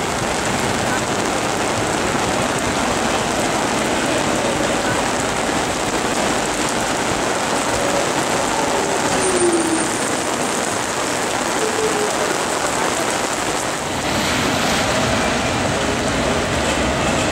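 Heavy rain pouring steadily onto a street, with a tram rolling past on its rails and a few faint brief wheel squeals.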